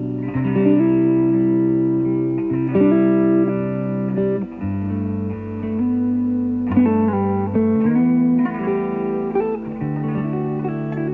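Background music: a guitar piece with sustained, slowly changing chords and a bass line.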